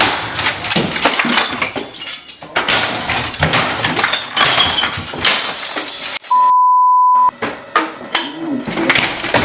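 Loud, continuous clattering and crashing of things breaking, glass among them. About six seconds in the crashing stops for a steady high beep lasting about a second, like a censor bleep, then the crashing resumes.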